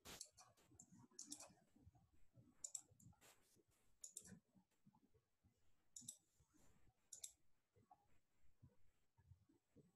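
Near silence, broken by several faint, sharp clicks at irregular intervals.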